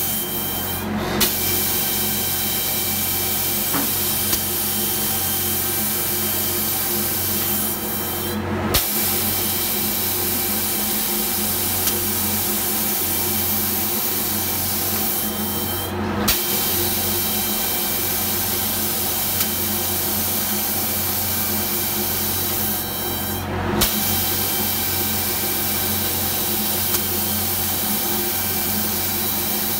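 Automatic spray-painting machine running: a steady hiss of compressed air from the spray guns over a motor hum. The hiss drops out briefly about every seven and a half seconds and comes back with a click as the guns cycle.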